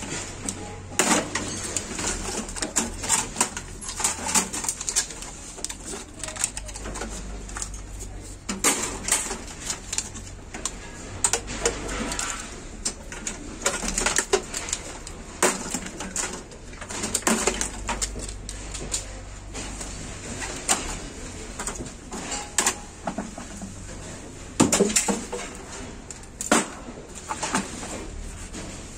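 Irregular clicks, knocks and clatter of sheet-metal and plastic computer parts as ribbon cables and connectors are pulled off drives and a motherboard in an old PC case.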